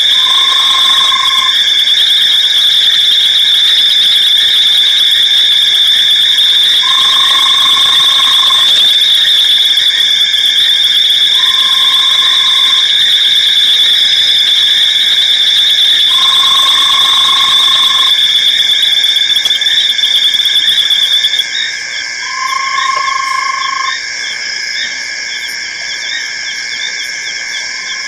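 Night chorus of insects and frogs at an African waterhole: a loud, continuous high-pitched trill, with a lower note about a second long repeating every four to five seconds. The high trill cuts out about 21 seconds in, leaving the fainter chorus.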